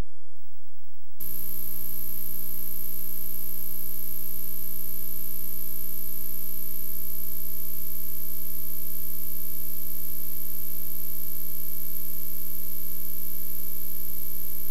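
Blank VHS tape playback noise: a steady low hum, joined about a second in by hiss and a thin high-pitched whine, all unchanging.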